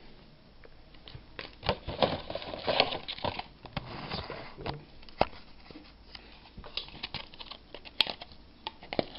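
Irregular crinkling, rustling and clicking of a plastic-wrapped trading-card pack being handled and unwrapped, with a few sharper clicks.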